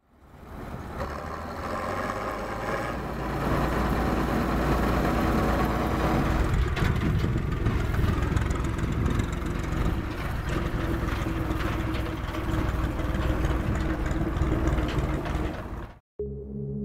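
Diesel engines of farm machinery running steadily. The sound fades in over the first second and cuts off abruptly about sixteen seconds in, when music begins.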